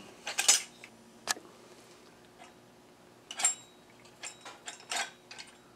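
Light clicks and taps of a thin metal shaft and wooden parts being handled as the shaft is pushed through a hole in a wooden frame and a wooden cam is fitted onto it: a few scattered ticks, then a quick run of them near the end.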